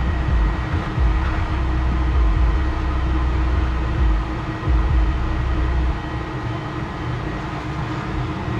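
Vacuum cleaner running steadily with a motor hum, with uneven low rumbling as the nozzle is worked around; the rumble eases about six seconds in.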